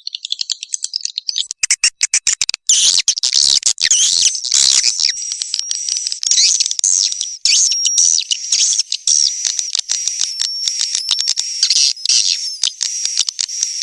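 Swiftlet lure sound: a dense, high-pitched chorus of swiftlet chirps and twitters, with fast clicking calls in the first couple of seconds, played to attract swiftlets into a nesting house.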